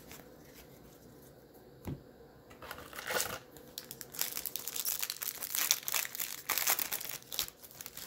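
Plastic foil wrapper of a baseball card pack being torn open and crinkled by hand: a dense, crackling rustle that starts about three seconds in and lasts around five seconds, after a single soft knock.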